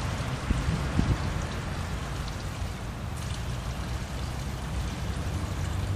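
Water running from an outdoor wall tap and splashing onto a cat's fur and the stone paving below, a steady spatter, with a couple of soft knocks about a second in.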